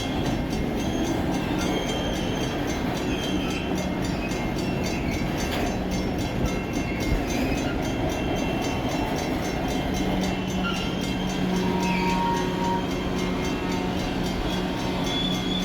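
Pan Am Railways freight train rolling past, a steady rumble of rail cars on the track. A low steady hum comes and goes over the rumble.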